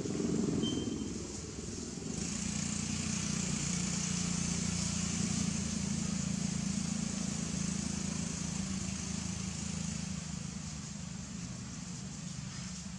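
A steady low engine drone. A steady high hiss joins it about two seconds in.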